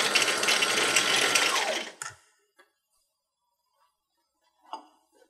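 Brother CS6000i sewing machine running fast on its bobbin winder, then slowing with a falling whine and stopping about two seconds in. A faint click and a short soft knock follow near the end.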